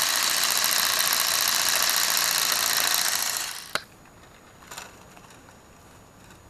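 Lego RC car's electric motor and plastic gear train whirring at speed with a steady high whine, winding down quickly about three and a half seconds in. A sharp click follows as it stops, then a faint brief rattle.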